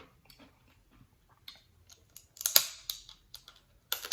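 Close-up eating sounds of sauce-drenched blue crab: soft wet clicks and mouth smacks, with a sharp, louder crack about two and a half seconds in and another near the end, like shell being broken.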